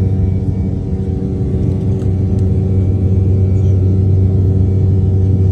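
Airliner jet engines running, a steady low drone and rumble heard from inside the cabin.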